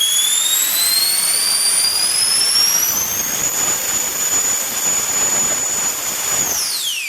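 JP 120mm all-metal electric ducted fan on 14S, its high whine rising in pitch as it spools up, holding steady at full throttle for about three seconds, then dropping sharply near the end as the throttle is cut and it spools down.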